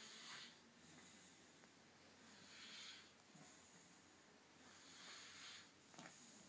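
A man snoring in his sleep: three faint, hissing breaths about two and a half seconds apart.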